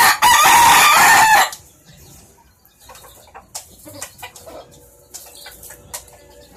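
A rooster crowing once, loud, for about a second and a half at the start, followed by faint scattered clicks.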